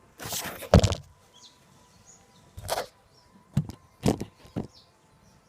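Handling knocks and clicks: a rustle ending in a sharp thump about a second in, a shorter rustle, then three sharp clicks. No engine is running yet.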